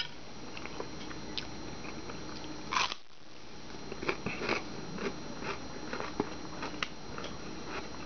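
A person biting and chewing crunchy food close to the microphone: one louder crunch just before three seconds in, then a run of small crunching clicks.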